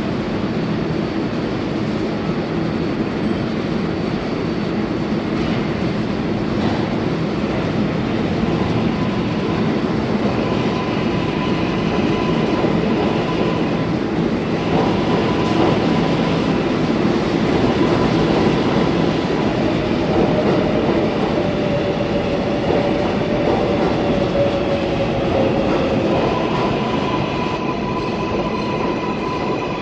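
R188 subway train running alongside the platform: a steady, loud rumble of wheels on rail with thin high squealing tones over it. A motor whine sinks a little in pitch past the two-thirds mark.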